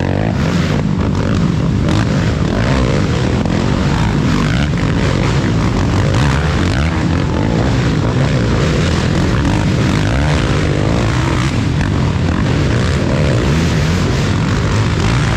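Racing ATV engine running hard, its revs rising and falling continuously.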